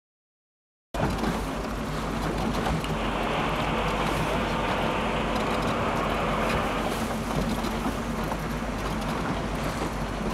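Silence for about a second, then the steady noise of a small motorboat under way: its engine droning low, with wind rumbling on the microphone and water rushing past the hull.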